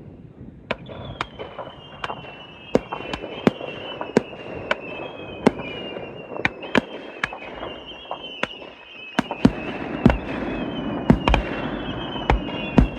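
Fireworks display: a string of sharp bangs and cracks, about one to two a second, with deeper booms setting in after about nine seconds. Underneath runs a high whistling tone that slowly falls in pitch.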